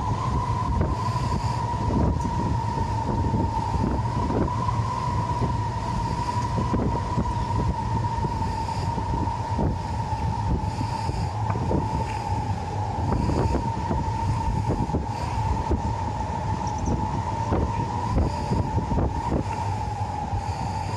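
Jet engines of a cargo airliner at takeoff power: a steady high whine that sinks very slightly in pitch, over a deep rumble. Strong wind buffets the microphone in irregular gusts.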